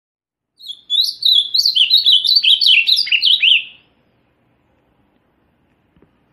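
Azulão-da-mata, a blue grosbeak (Cyanoloxia), singing one fast warbled phrase of quick up-and-down notes that ends with a few falling notes. A faint tick follows near the end.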